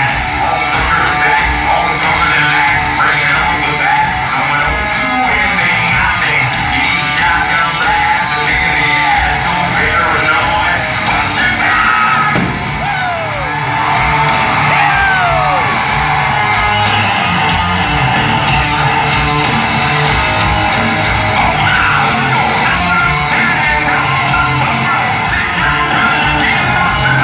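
Loud live rock music from a band in concert, with singing and yelling over it, echoing in a large hall.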